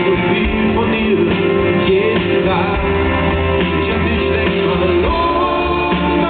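Live pop-rock band playing a ballad: acoustic guitar strumming over a drum kit, with a voice singing.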